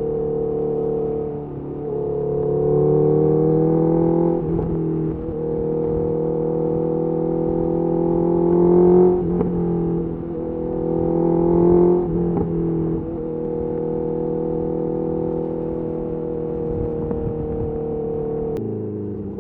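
Honda CBR650R's inline-four engine through a Mivv MK3 carbon exhaust, revving up under acceleration with the pitch dropping sharply at each of several gear changes. It then holds a steady cruise, and the revs fall suddenly near the end.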